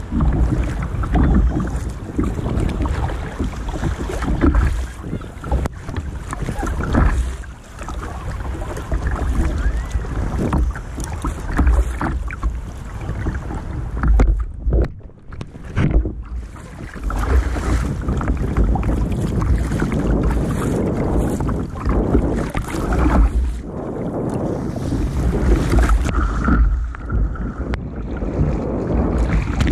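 Surf water splashing and sloshing against the hull of a sit-on-top kayak as it pitches over waves, with heavy wind rumble on the microphone. The sound drops away briefly about halfway through, then returns.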